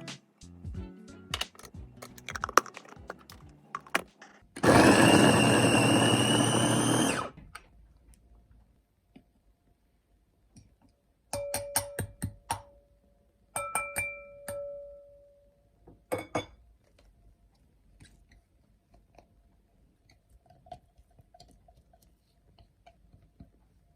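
An electric kitchen blender runs for about two and a half seconds with a steady whine, after a few seconds of background music. Later come a few sharp clicks and short beeping tones.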